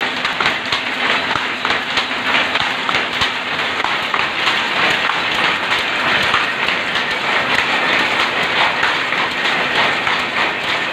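Shuttle loom converted to a rapier loom, running and weaving plain cloth: a loud, steady, dense mechanical clatter of rapid beats.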